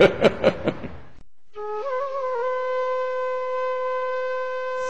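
Solo flute as interlude music: it enters on a lower note, steps up with a brief wavering ornament, then holds one long steady note.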